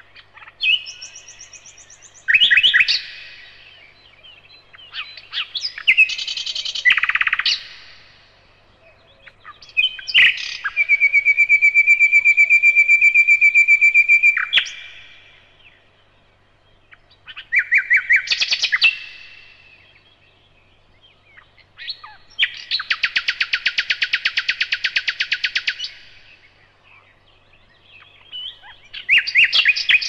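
Common nightingale singing in separate, varied phrases with short pauses between them. These include a long run of rapid repeated notes held for about four seconds in the middle, and a dense, fast trill later on.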